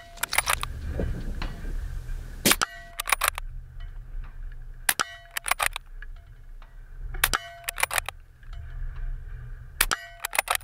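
Suppressed Accuracy International AX bolt-action rifle fired rapidly, a shot about every two and a half seconds, each shot followed by a short run of sharper clicks and knocks.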